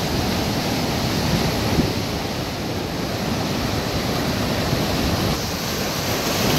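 Ocean surf breaking and washing over rock boulders: a steady rush of white water.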